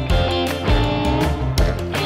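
Background music: a guitar-led instrumental with drum hits.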